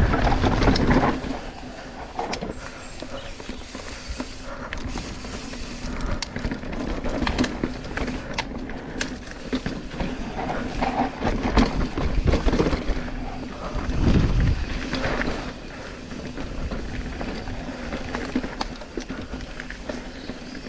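Mountain bike rolling fast down a dirt trail: tyre noise on the dirt with frequent rattles and knocks from the bike over bumps and roots, and a steady hum underneath. A heavier low rumble comes in the first second and again about fourteen seconds in.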